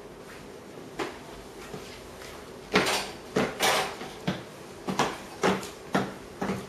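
Footsteps on a tiled floor: sharp, even steps at about two a second, starting a little under three seconds in.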